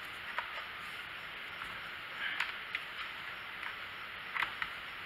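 Scattered light clicks and scrapes of a metal hand tool prying inside a Stihl chainsaw's plastic engine housing, over a steady hiss. The tool is working a wire loose at the ignition coil.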